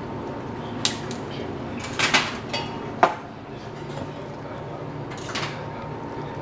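Kitchen clatter of dishes and utensils being handled: a few sharp clinks and knocks, the loudest about three seconds in, over a steady low hum.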